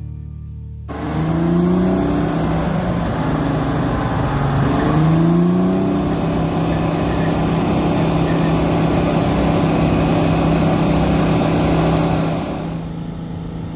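Motor vehicle engine accelerating: its pitch rises twice as it goes up through the gears, then holds steady at cruising speed with road noise. Near the end the road noise drops away, leaving a lower hum.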